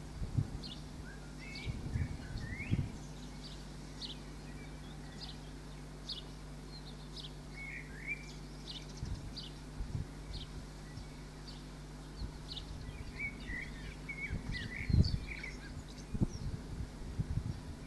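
Small songbirds chirping and singing, with short high chirps about once a second and a few warbling phrases. Underneath are a steady low hum and occasional low thumps, the loudest about three-quarters of the way through.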